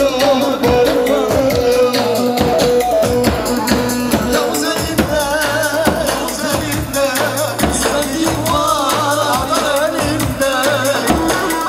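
Lively party music with a steady percussion beat and a wavering, ornamented melody line.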